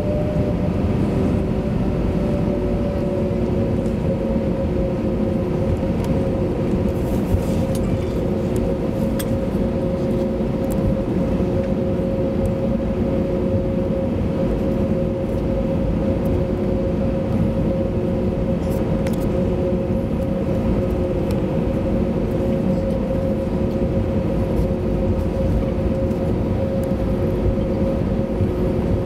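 Cabin noise of an Airbus A321-200 taxiing: the engines run steadily at idle with a constant hum and a steady whine, over a low rumble from the rolling wheels. The whine dips slightly in pitch in the first few seconds, and a few faint ticks sound now and then.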